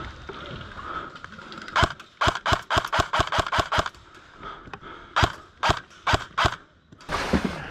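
Airsoft rifle firing: a quick string of about ten sharp shots, then a short pause and five slower single shots.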